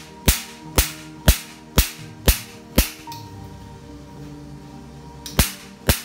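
Picosecond laser handpiece (755 nm) firing pulses onto a black test card, each pulse a sharp snap, two per second. Six shots, a pause of about two and a half seconds, then two more near the end.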